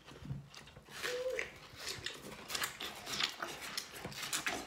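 People biting into and chewing watermelon slices: a run of many short bites and mouth noises, with a brief hummed voice about a second in.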